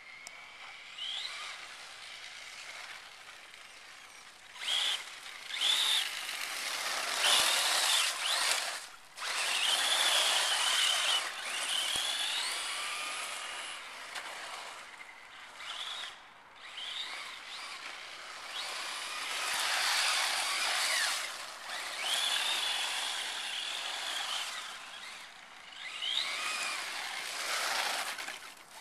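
Traxxas Slash 4x4 Ultimate RC truck driving on a paved road: its brushless electric motor whines, sweeping up in pitch with each burst of throttle and dropping away when the throttle is let off. The whine sits over a steady hiss of the tyres on sand and grit.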